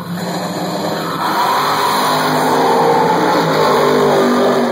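Drag-racing cars launching and accelerating hard down the strip. The engines rev up in rising pitch and get louder about a second in as they pass.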